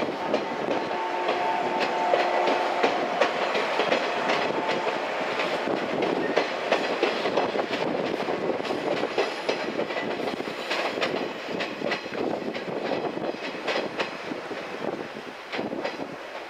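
Yellow electric multiple unit, set B16 of the Okayama depot, running along the track with irregular clicks of its wheels over rail joints. A few steady tones sound during the first few seconds. The noise slowly fades toward the end as the train draws away.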